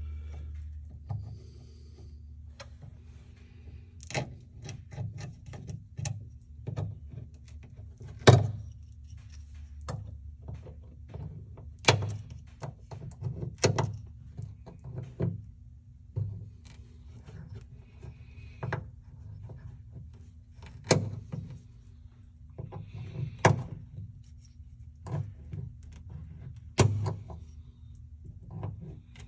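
Hammer striking a pin punch, driving drilled-out rivets from the aircraft's aluminium structure: irregular sharp knocks and taps with pauses between them, the loudest about eight seconds in. A steady low hum runs underneath.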